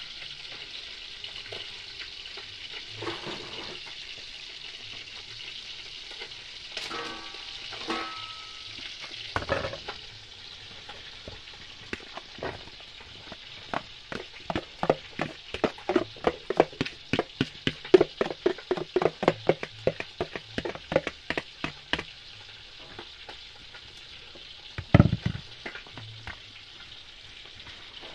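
Steady sizzle of food frying in oil, with a run of quick spoon taps and scrapes against plastic bowls through the middle, about three a second, as chopped tomato is scraped from one bowl into another. A single louder knock comes near the end.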